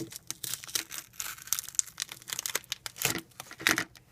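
Crinkling and rustling of plastic glitter packaging being handled and opened, with many small clicks and two louder swishes about three seconds in.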